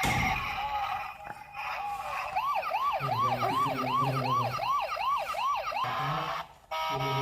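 Toy police car's electronic siren sounding a fast rising-and-falling yelp, about three sweeps a second, for roughly three seconds. Steady electronic tones come before it and again after a short break near the end.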